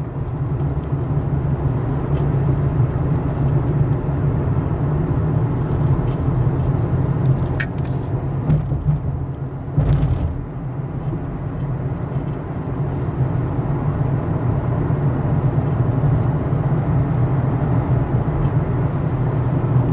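Steady low engine and road rumble inside a moving car's cabin, with a brief knock about halfway through.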